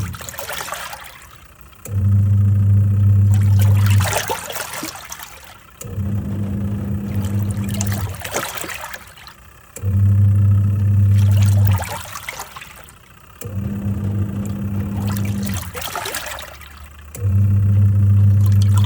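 Twin-tub washing machine's wash tub agitating a load in water: the motor hums for about two seconds, stops while the water sloshes and swirls, then starts again, five runs in a steady cycle about every four seconds as the pulsator turns back and forth.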